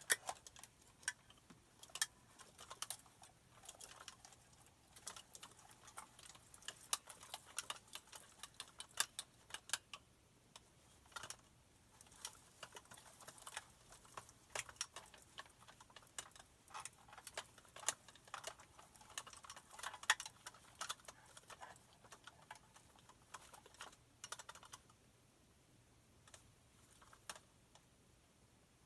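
Irregular light clicks, taps and small rattles in quick clusters, thinning out over the last few seconds: a foley take of small hand-held props being handled and knocked.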